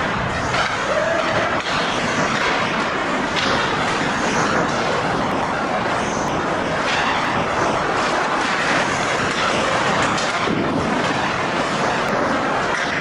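Ice rink din during a hockey game: a steady rushing noise of skates on ice and the arena, with a few faint sharp knocks.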